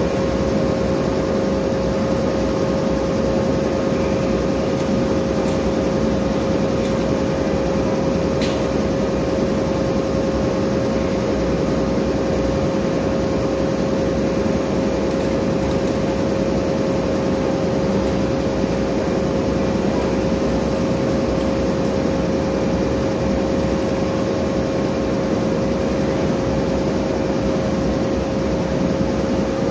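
Steady mechanical hum with a constant mid-pitched tone over an even rush of noise. It holds unchanged throughout, with a few faint ticks.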